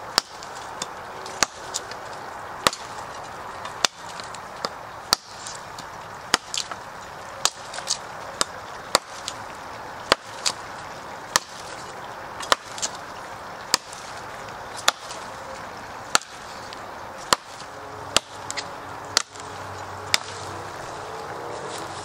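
Ka-Bar Becker BK9 bowie knife chopping into a fallen dead log, its blade striking the wood in a steady run of sharp whacks, about one to two a second.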